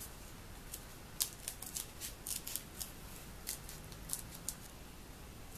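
Scissors snipping through thin polyethylene foam underlayment: a quick, irregular run of short snips, starting about a second in and stopping about a second before the end.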